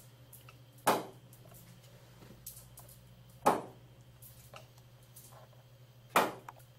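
A small polyurethane caster wheel thrown down onto a hard floor three times, each landing a sharp impact that dies away quickly, about two and a half seconds apart. A steady low hum runs underneath.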